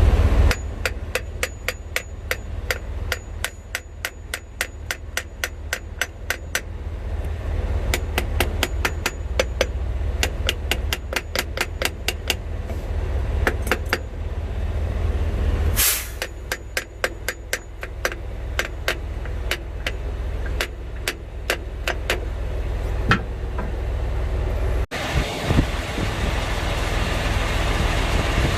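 A hammer taps metal on a reefer unit in quick, even strokes, about three or four a second, in two long runs, over a steady engine rumble. A brief loud hiss comes in the pause between the runs.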